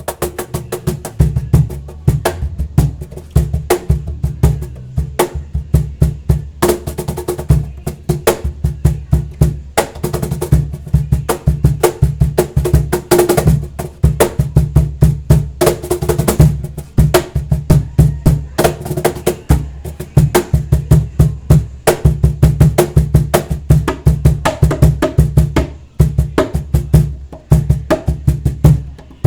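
Flamenco cajón played solo in a fast, continuous rhythm. Deep bass thumps alternate with sharp, bright slaps on the front plate, with a short break about 26 seconds in.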